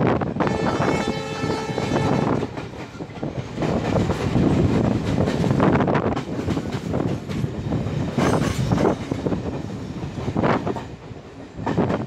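A WDP4 diesel locomotive's horn sounds once, for about two seconds, near the start, heard from a coach window of the train it is hauling. The train then runs on with a steady rumble and some wheel clatter on the rails.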